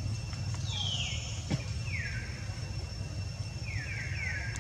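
Baby monkey giving short, high squeals that fall in pitch: one a little under a second in, one at about two seconds, and three in quick succession near the end, over a steady low hum.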